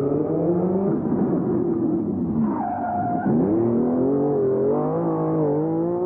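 Rally car engine revving hard, its pitch swinging up and down. About three seconds in, the revs drop sharply and then climb again.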